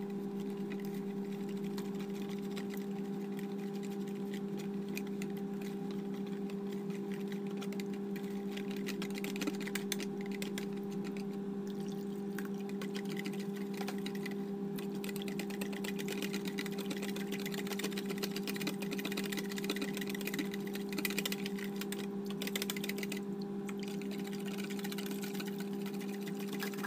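Wire whisk stirring thin, watery batter in a pan, with faint irregular scraping and clicking, over a steady low electric hum.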